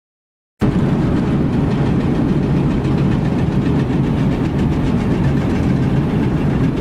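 A moment of dead silence, then about half a second in a steady low mechanical rumble starts, like heavy machinery running, unchanging throughout.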